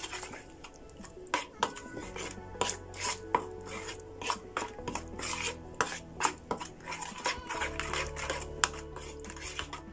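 Spoon stirring a thick yogurt-and-spice marinade in a plastic bowl, clicking and scraping against the bowl in quick, irregular strokes.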